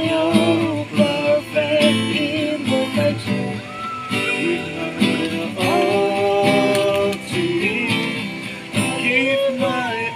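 A song: a singing voice carrying a melody over strummed acoustic guitar.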